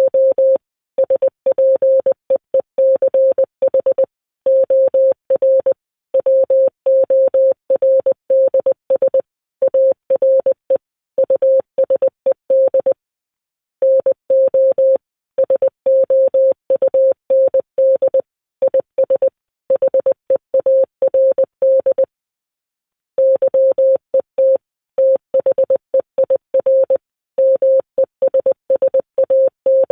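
Fast Morse code: a single mid-pitched tone keyed on and off in rapid dots and dashes, with two pauses of about a second, one near the middle and one about two-thirds of the way through.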